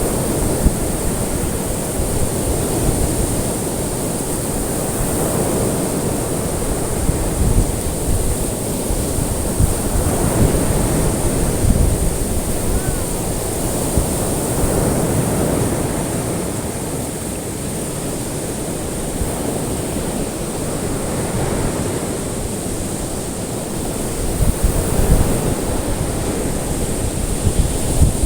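Ocean waves breaking and washing in, a continuous surf noise that swells and eases every few seconds. A faint steady high hiss runs under it.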